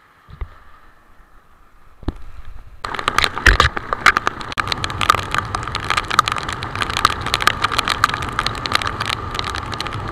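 Heavy rain crackling against the camera on a moving motorcycle in a dense run of sharp drop hits, over a steady rush of wind and road noise. It comes in abruptly about three seconds in, after a quieter stretch with a single thump.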